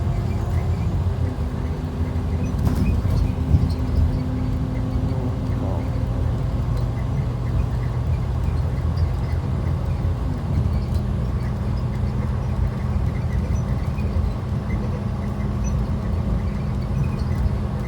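2012 IC RE school bus heard from inside the cabin while under way: its rear-mounted MaxxForce DT diesel engine runs with a steady drone over road rumble. The engine note steps down a little about ten seconds in.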